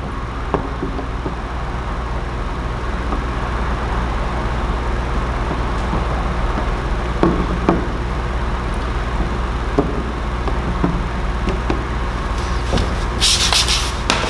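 Squeegee rubbing across wet paint protection film on a headlight lens, with a few light ticks, over a steady low hum. A short hiss comes near the end.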